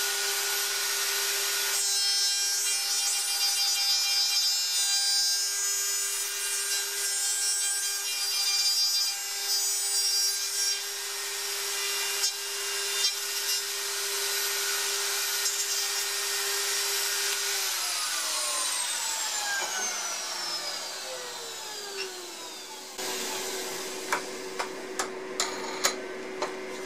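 Router with a dovetail bit running and cutting through wood in a dovetail jig, its steady whine rising and dipping with the load. About two thirds of the way in it is switched off and spins down with a falling whine. Near the end come several sharp clicks and knocks.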